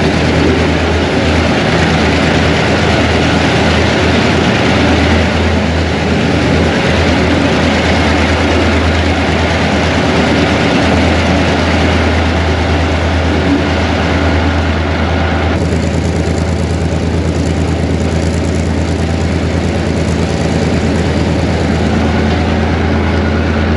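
Train running: the steady drone of a diesel locomotive's engine under a continuous rushing rail and running noise. The higher part of the rushing drops away suddenly about two-thirds of the way through.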